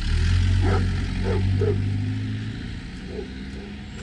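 Vehicle engine running loudly for the first couple of seconds, then easing off, with a dog giving about four short barks over it.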